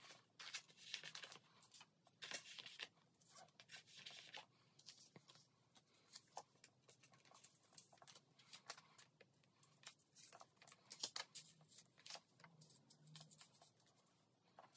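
Faint rustling and crinkling of clear plastic binder sleeves as photocards are slid into their pockets and handled, in short irregular bursts with light clicks.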